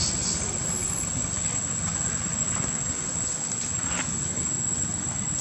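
Steady low rumble of outdoor background noise, with no clear monkey calls.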